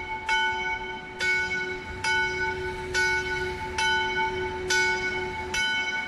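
A single church bell tolling in the belfry of a Catholic church, struck about once a second at the same pitch, each stroke ringing on into the next: the noon ringing.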